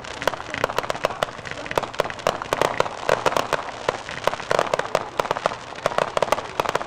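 Fireworks going off in a rapid volley: many small aerial shells and comets banging and popping in quick, irregular succession, several reports a second.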